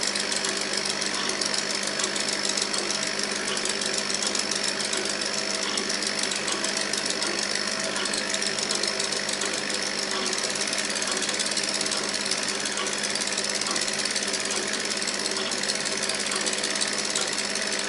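Laser cutter's gantry motors chattering in a fast, even stream of ticks as the cutting head darts through many short cuts in a thin wood sheet, over a steady hum and hiss.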